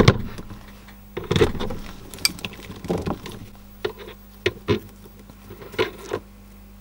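Cables being handled and speaker wire ends twisted: scattered light clicks and knocks, about eight in all, as leads are pulled across the bench, over a faint steady low hum.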